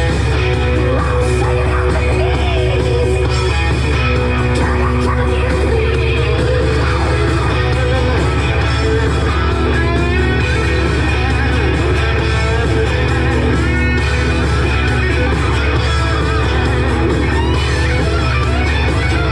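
Music with guitar, playing steadily.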